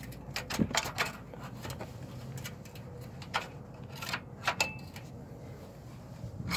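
A small red-handled hand ratchet working a nut on a Chevy Tahoe's upper control arm: sharp metallic clicks that come irregularly, a few each second, over a faint low hum.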